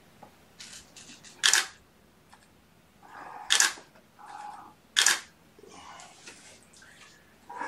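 Digital SLR camera shutter firing three single shots, each a short sharp click, about a second and a half in, at three and a half seconds and at five seconds.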